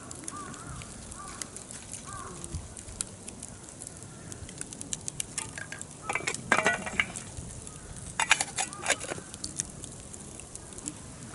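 Wood campfire crackling and popping in irregular sharp snaps, with two louder clusters of sound about six and eight seconds in.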